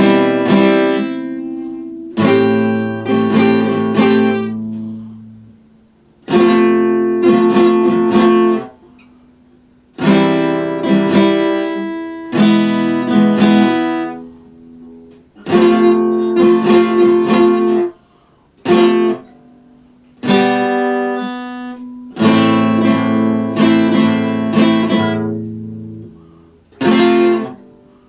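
Epiphone steel-string acoustic guitar strummed in short phrases of chords, about ten in all, each left to ring and fade before a brief pause and the next.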